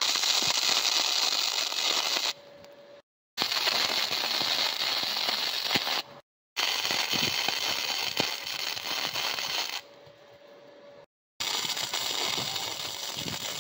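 Wire-feed (MIG) welder arc crackling steadily while welding a gusset onto a mini-trike frame, in four runs of two to three seconds each with short breaks between them.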